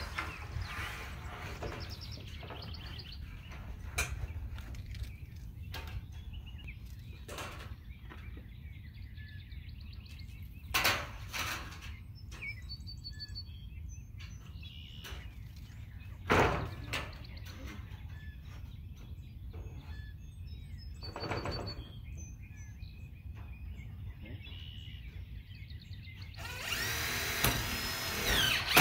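Metal roof panels being fitted: a few sharp knocks as the panels are handled and fastened, and about two seconds of a power drill driving roofing screws near the end, the loudest sound. Birds chirp over a low wind rumble on the microphone.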